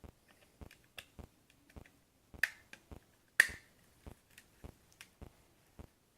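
Quick run of small clicks and taps from the plastic parts of a metal detector's control housing being handled and fitted back together, with two sharper snaps about two and a half and three and a half seconds in.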